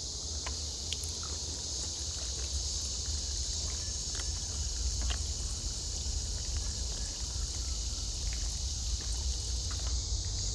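Steady high-pitched insect chorus from the forest, with low wind rumble on the microphone and a few faint clicks.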